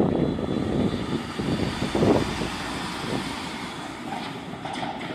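A VAL rubber-tyred automatic metro train running past on its guideway, with heavy wind buffeting on the microphone. The noise comes in suddenly and slowly fades.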